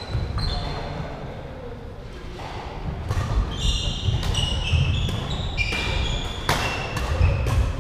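Badminton doubles rally: sharp racket hits on the shuttlecock, with shoes squeaking and feet thudding on a wooden sports-hall floor. The hits and squeaks come thicker and faster from about two and a half seconds in.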